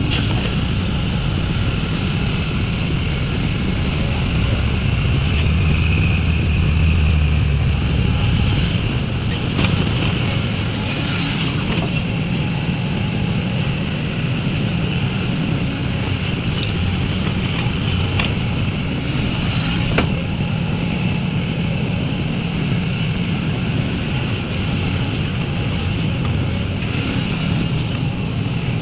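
Heavy diesel earthmoving machinery running steadily, the engine swelling for a few seconds about five seconds in, with a few sharp knocks now and then.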